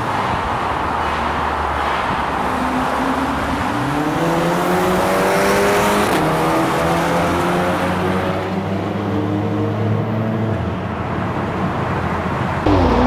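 Modified Audi S3 8P's turbocharged 2.0-litre four-cylinder with a turbo-back, decat Milltek exhaust, accelerating hard in a tunnel. Its note climbs from about four seconds in, holds, then drops away near the end.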